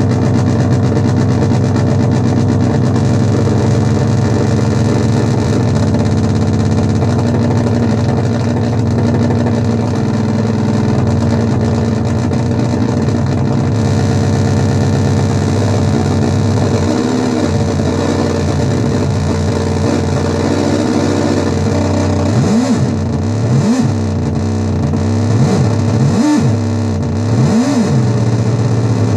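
Dirty Drone anarchy edition synthesizer, three interacting triangle-wave oscillators, playing a thick, steady drone of several layered tones. In the last several seconds its pitch starts swooping up and down in repeated arcs.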